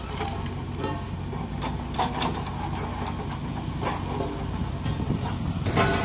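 JCB backhoe loader's diesel engine running steadily, with a few short clanks and scrapes as the backhoe bucket works the stony roadside.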